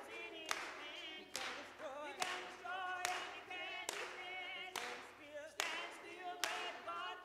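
Women's voices singing a lively song, with hand claps keeping the beat about once a second.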